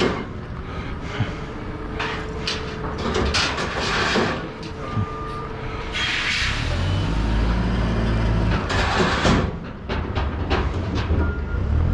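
A large vehicle's engine running close by, loudest for a few seconds past the middle, with clanks and rattles of scrap metal.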